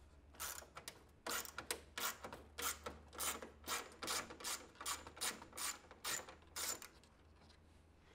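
Socket ratchet clicking in short, even strokes, about three a second, as a screw on the fountain's cabinet is backed out; the clicking stops about seven seconds in.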